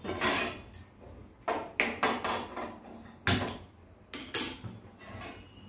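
Gas stove burner being lit with a handheld gas lighter, its knob turned: a run of about eight sharp, irregular clicks and knocks, some with a brief hiss after them.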